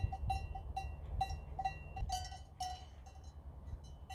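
Bells on a grazing flock of Valais Blacknose sheep clanking irregularly, two or three short rings a second, growing fainter near the end.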